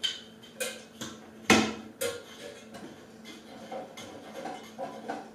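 The plastic trim ring of an LED recessed retrofit light clicking and knocking against its metal ceiling can as it is pushed and worked into place by hand. There is a quick run of sharp knocks in the first two seconds, the loudest about a second and a half in, then lighter ticks and scrapes.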